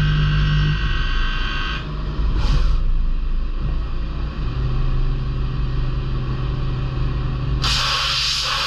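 DMG Mori NLX2500 CNC turn-mill lathe running, a steady machine hum with several held tones. About two seconds in the higher tones stop with a brief sweep in pitch, and near the end a loud, even hiss starts.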